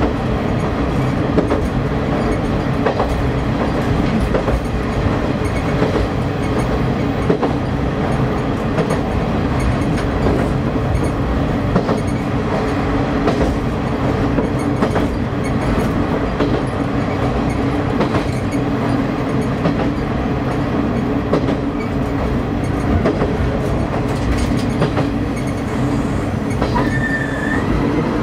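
KiHa 31 diesel railcar running along the line: a steady diesel engine drone mixed with wheel-on-rail rumble and occasional clicks over rail joints. A brief high tone sounds near the end.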